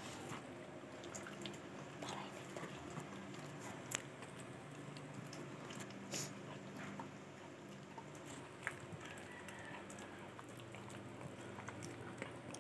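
Dachshund gnawing and chewing a snack held between its paws: irregular crunches and sharp clicks of its teeth, over a steady low hum.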